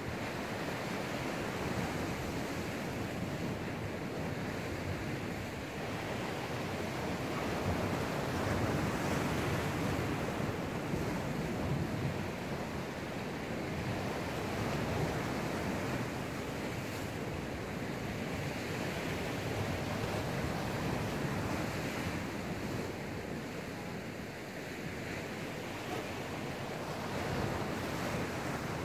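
Waves of a slightly rough sea surging and washing back on a rocky shore, the sound swelling and easing every few seconds, with some wind on the microphone.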